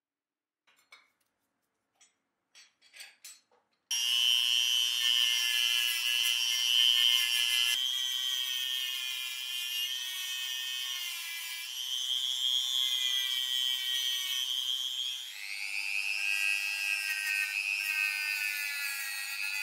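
A few faint taps and scrapes, then about four seconds in a small handheld rotary tool starts with a steady high-pitched whine as its spinning brush wheel works old paint off the die-cast model car body. The pitch wavers with the pressure and drops noticeably about three-quarters of the way through.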